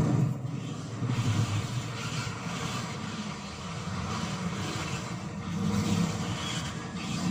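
Road traffic passing close by: a minivan and then several motorcycles and scooters, their engines and tyres rising and fading as each goes past.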